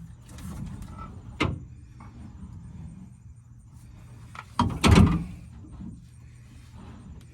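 Spare tire being winched up under a pickup: knocks and scraping of the tire and wheel against the underbody winch and its arm, with a sharp knock about a second and a half in and a louder clatter about five seconds in.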